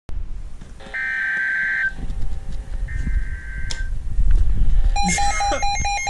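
Weather alert radio sounding an EAS severe thunderstorm warning: two screechy digital data bursts of about a second each, typical of the SAME header tones, then rapid pulsing alert beeps in the last second. Low rumbling handling noise sits underneath.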